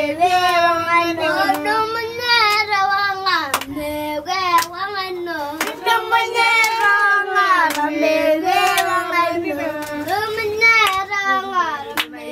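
Young Maasai children singing a song without accompaniment, a continuous melody that rises and falls, with a few sharp clicks here and there.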